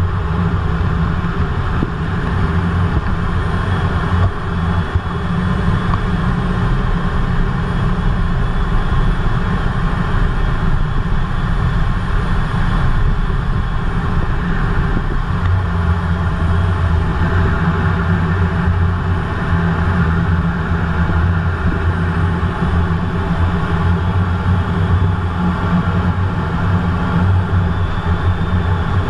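Steady loud noise inside the cockpit of a Eurofighter Typhoon in low-level flight: its twin jet engines and the air rushing over the canopy, with a deep drone that grows stronger about halfway through.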